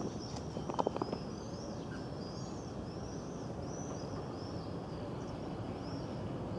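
A small songbird singing a run of short, high, arching notes, about two a second, over a steady low outdoor background hum. A few short knocks sound about a second in.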